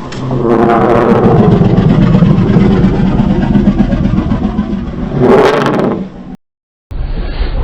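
Dinosaur roar sound effect: a long, low, raspy growl that swells and holds for about six seconds, with a harsher surge near its end. It cuts off abruptly, and after a brief silence the next effect begins.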